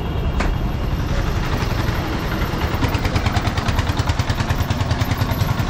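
An engine running close by with an even pulsing beat, the beat growing clearer in the second half.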